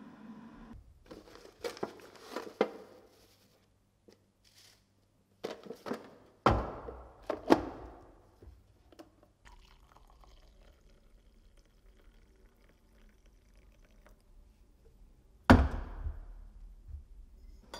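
Coffee-making handling sounds: a run of light knocks and clinks, then heavier clunks around a drip coffee maker with a pouring sound. Near the end comes one sharp knock as the forged scoop with its copper bowl is set down on a wooden table.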